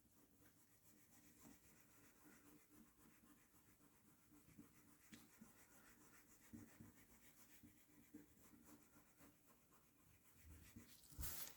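Faint, irregular rubbing strokes as polish is worked over the surface of a trading card, with a brief louder knock near the end.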